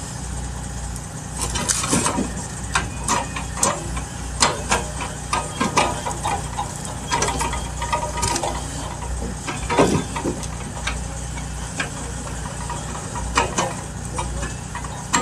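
Cat 579D knuckleboom log loader's diesel engine running steadily while it loads logs onto a truck trailer, with irregular sharp knocks and clunks of logs striking one another as the grapple handles them, the loudest about ten seconds in.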